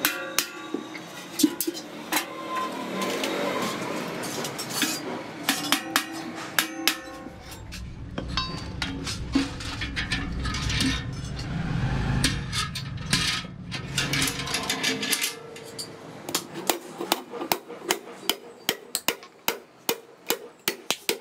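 Hammer blows on sheet metal: irregular metallic strikes, with a low rumble in the middle, then a quick, regular run of blows near the end.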